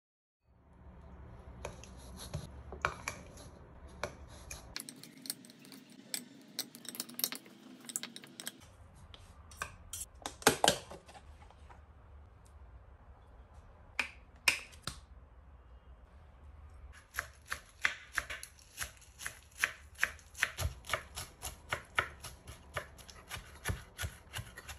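A kitchen knife chopping lettuce finely on a wooden cutting board, a steady run of cuts about two to three a second in the last several seconds. Before that, scattered clinks and scrapes of a spoon and forks against a bowl.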